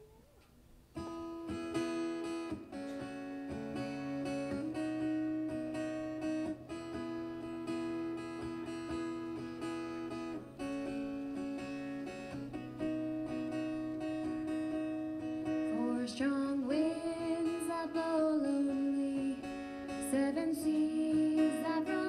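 A live country band starts a song about a second in: acoustic guitar strumming steady chords over bass and drums. About three-quarters of the way through, a sliding lead melody comes in over the chords.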